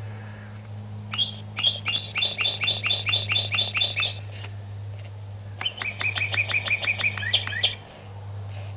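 Light-activated electronic chirper in a cat-skull bird figure, chirping like a bird in two quick runs of about five chirps a second, with a short pause between them. A steady low hum runs underneath.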